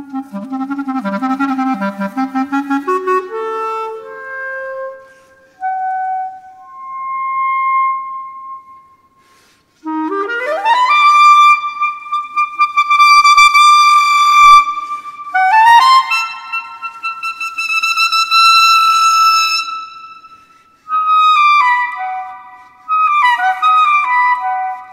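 Solo clarinet playing unaccompanied. It opens with a rapid low trill, climbs through single held notes, and after a short pause about ten seconds in sweeps up in a fast run to long, loud high notes, then steps back down in shorter phrases.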